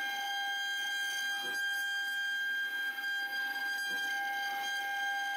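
CNC wood router spindle running at speed, giving a steady high-pitched whine that holds one pitch throughout.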